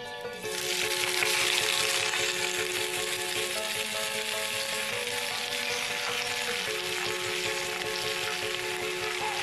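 Fresh spinach leaves sizzling as they go into a hot pan with a little salted water for blanching. The sizzle starts about half a second in, is loudest for the next second or two, then settles to a steady sizzle, with background music underneath.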